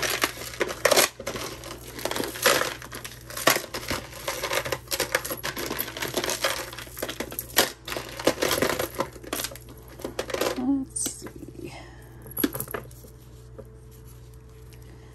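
Costume jewelry clinking and jangling as pieces are rummaged through and handled: a quick, busy run of small metallic clicks for about ten seconds, then it goes quieter.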